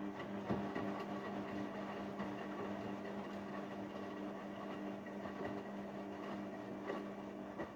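Haier 7.5 kg washing machine running on a delicate wash cycle: a steady motor hum under the rushing noise of the turning drum.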